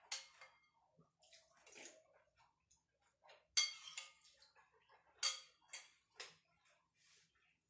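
Someone eating soup: a metal spoon clinks and scrapes against a ceramic bowl, along with slurps, in a handful of short, sharp sounds. The loudest come about three and a half and five seconds in.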